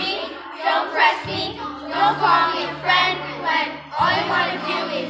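A group of schoolchildren singing a song together in unison, over steady low notes held underneath that change every second or two.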